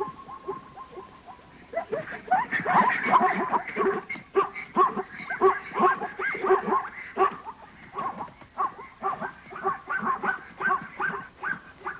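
A herd of plains zebras barking: a fast series of short calls from several animals at once, starting about two seconds in and coming in clusters.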